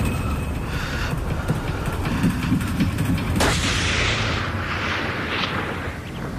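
Dramatic documentary sound design: a low, rumbling drone with irregular pulses, then a sudden boom about three and a half seconds in that trails off into a rushing noise, which swells a few times and fades.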